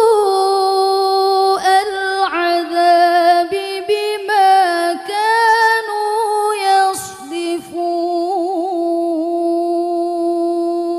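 A young woman chanting Qur'an recitation in the murattal style: one unbroken melodic line of long held vowels with small ornamental turns and a few brief breaths.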